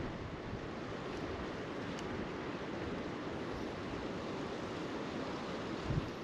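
Steady rush of flowing creek water, with wind buffeting the microphone, and a soft low thump near the end.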